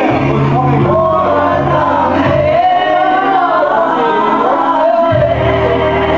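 Men singing a wavering melody together with music, over a steady low accompaniment that drops out for a couple of seconds in the middle.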